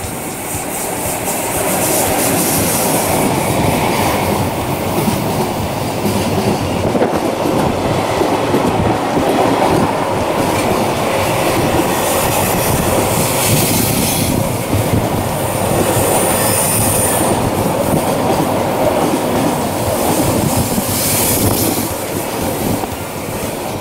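Container freight train hauled by an EF66 electric locomotive rolling past, its wagon wheels rumbling and clattering over the rails. Brief high-pitched wheel squeals come several times, the clearest about two-thirds of the way through.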